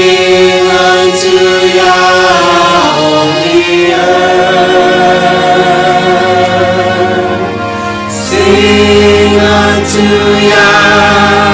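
Vocal group singing a worship song in long, held harmonised notes over a steady low accompaniment, swelling again about eight seconds in.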